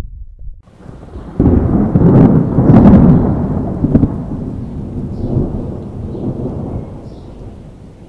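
A loud thunderclap that breaks in under a second in and cracks sharply about two to three seconds in, then rumbles away slowly.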